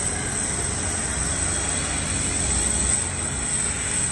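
Steady high-pitched whine over a low rumble from a parked Boeing 747-400ERF's auxiliary power unit running.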